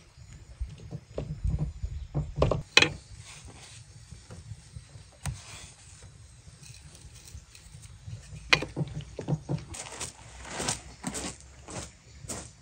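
Irregular knocks, taps and clicks over a low rumble, with the sharpest strikes about a third of the way in and again about two thirds in, and a quick run of taps near the end.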